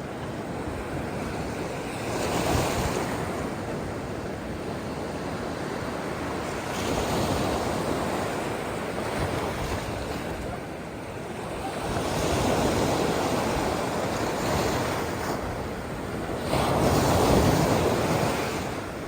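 Ocean surf breaking on the shore: a steady wash of water with four waves surging in, about five seconds apart, the last one the loudest.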